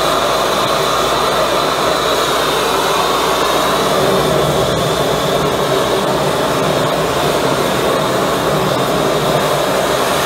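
High-velocity propane burner with compressed-air assist running at full fire, a loud, steady, jet-like rushing noise.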